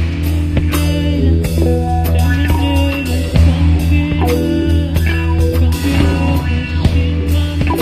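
Music: a band playing, with electric guitar, bass and a drum kit keeping a steady beat.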